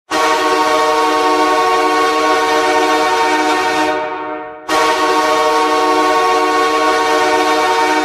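Los Angeles Kings arena goal horn, the signal of a Kings goal, sounding two long blasts of about four seconds each. The first tails off just before the five-second mark and the second starts straight after it.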